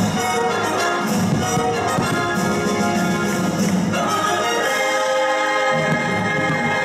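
Orchestral music with prominent brass, played loud as the soundtrack of a fireworks show.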